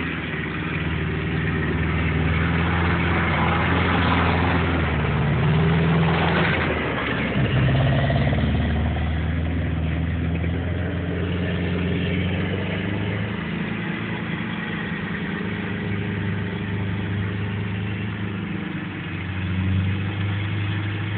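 A 4x4 off-road vehicle's engine working through terrain, its note rising and falling with the throttle and load, loudest about four to eight seconds in.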